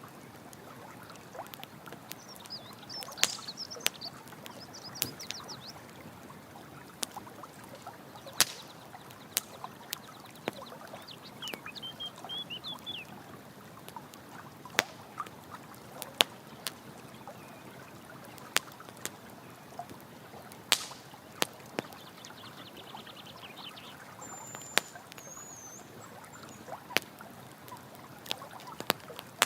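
Campfire crackling, with sharp pops every second or two, over a steady rush of running water. A few short bird chirps come through now and then.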